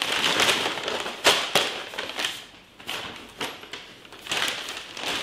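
Rustling and crinkling of plastic bags being handled, in short bursts, with a few sharp taps and thuds.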